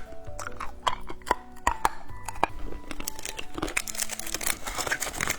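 Plastic candy wrapper crinkling and tearing in a run of irregular crackles as a lollipop is unwrapped, with background music underneath.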